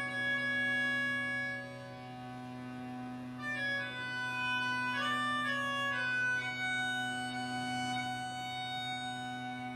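Slow instrumental music: long held notes that shift pitch now and then over a steady low drone.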